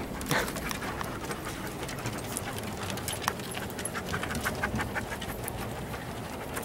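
A pack of dogs panting and milling about on a wooden deck, with many short, irregular clicks of claws on the boards.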